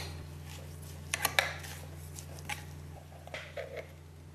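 A metal spoon clinking and scraping against the inside of a glass jar while scooping thick chili sauce and flakes, with a quick run of three sharp clinks about a second in and softer scrapes later. A steady low hum runs underneath.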